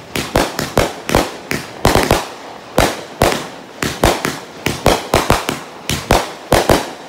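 Aerial fireworks going off in quick succession: a rapid, uneven string of sharp bangs, about three a second, each trailing off in a short echo.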